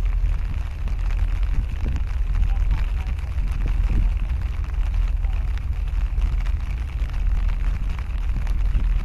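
Steady low rumble of wind buffeting the microphone aboard a small boat on open harbour water, with a hiss on top and a level that wavers unevenly.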